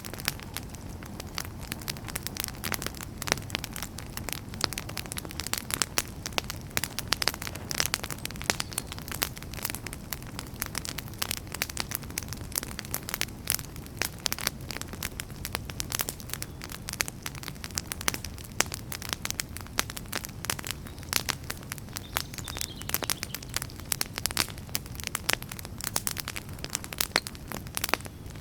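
Wood fire burning in a fireplace: dense, irregular crackles and pops from the burning logs over a soft low rumble of the flames.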